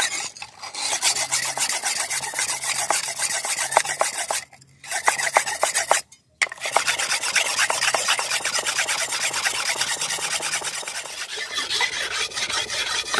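Broad steel chopping knife being ground by hand on a wet whetstone: rapid back-and-forth scraping strokes that break off briefly twice. The edge is still thick and is being ground down until a burr forms.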